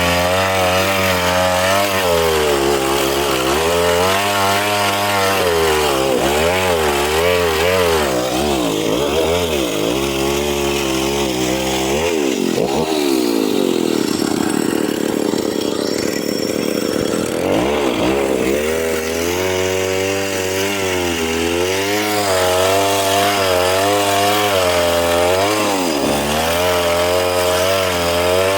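Chainsaw running while cutting wood, its engine pitch rising and falling as the chain works through the cut. Around the middle the pitch drops lower for several seconds, then climbs back up.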